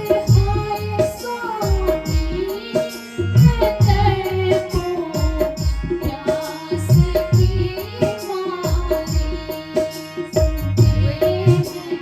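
Indian-style music: a gliding melody over steady hand-drum strokes in the tabla style.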